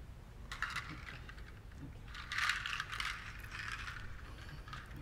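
Hand-held rattle shaken softly in a few short bursts, about half a second in and again around two to three seconds in.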